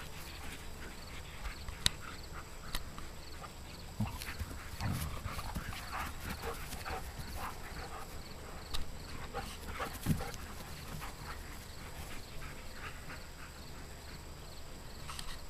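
Two German shepherds playing on grass: panting and scuffling paws, with scattered sharp clicks and a couple of short low grunts about five and ten seconds in.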